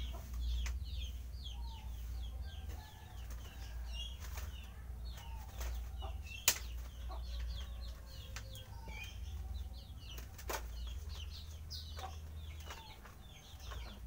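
Small birds chirping rapidly and steadily, with wing flaps, rustling and sharp clicks from an owl being handled in and out of a wire birdcage. One loud click about six and a half seconds in.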